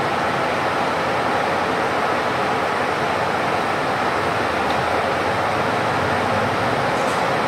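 Steady running noise inside a city bus cabin: the engine and air conditioning of the bus waiting at a traffic light.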